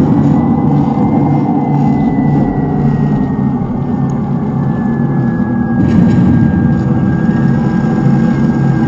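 A 1/10 scale RC tank's sound unit playing a loud, steady simulated tank engine, with a thin high whine over it that drifts slowly up and down in pitch.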